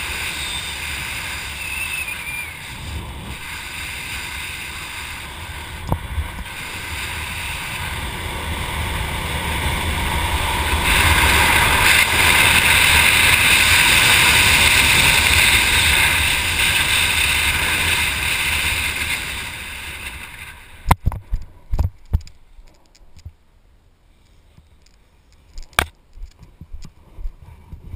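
Wind rushing over the camera's microphone as a skydiver flies a parachute canopy in to land, building to its loudest on the final approach, then dying away as he touches down about 21 seconds in. A cluster of sharp knocks comes with the landing, and a few softer knocks follow as the canopy comes down.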